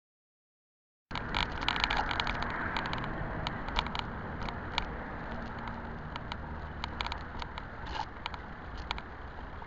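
Electric bike in motion heard through a cheap action camera's built-in microphone: a steady rumble of wind and tyre noise with many sharp clicks and rattles. It starts suddenly about a second in, after silence.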